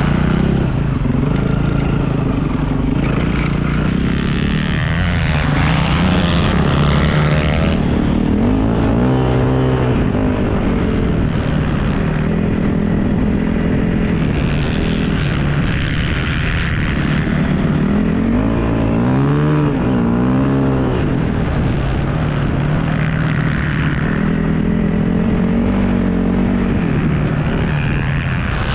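Dirt bike engine heard from the rider's helmet, running hard and revving up and down with gear changes, with a rush of wind noise. The engine note swoops up and down most clearly about ten and twenty seconds in.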